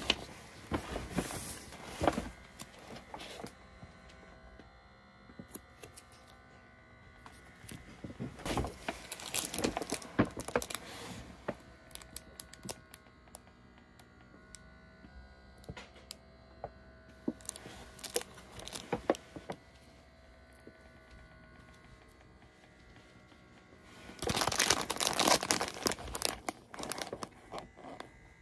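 Intermittent rustling and crinkling of something being handled, with scattered clicks, in several separate bursts; the longest and loudest comes near the end.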